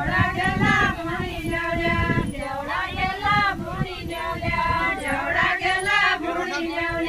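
A group of women singing a Nepali deuda folk song together, their high voices in unison in short repeated phrases, with no instruments.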